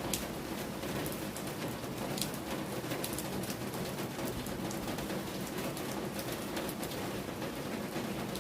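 Steady rain, with individual drops landing close by on a hard surface. A pigeon coos low underneath.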